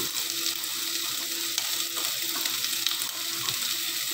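Sliced onion, garlic and chopped ginger sizzling steadily in hot oil in a pot, with small crackles.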